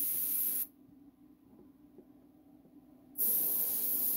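Airbrush spraying in short bursts of hiss that start and stop sharply: one lasting under a second at the start, another beginning about three seconds in. A faint steady hum runs underneath.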